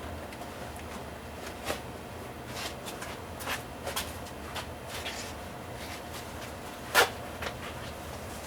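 Paper towels rustling as they are handled and wiped around the plumbing, with scattered light clicks and one sharp knock about seven seconds in.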